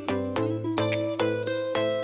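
Background music: a bright tune of short, sharply struck notes, a new note every half second or so, over a steady bass line.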